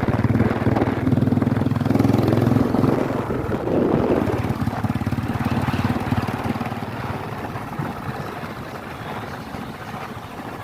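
Motorcycle engine running steadily, easing off about three seconds in and growing quieter toward the end.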